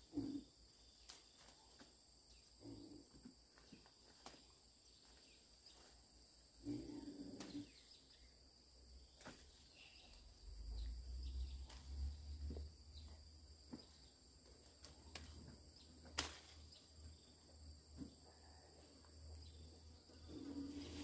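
Faint, steady insect chirring outdoors, with scattered sharp clicks and rustles and a low rumble from about halfway.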